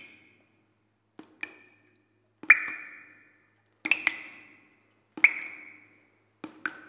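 A string of bright struck chime tones, about one every 1.3 seconds, some doubled, each ringing briefly and fading within about half a second, like an outro jingle.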